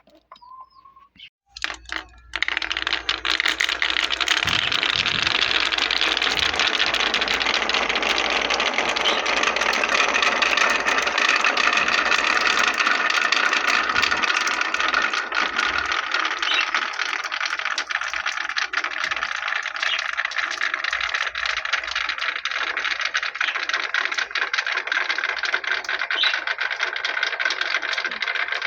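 Many marbles rolling and clattering down a handmade marble run. A few single clicks are followed, about two seconds in, by a dense, continuous rattle of small clicks.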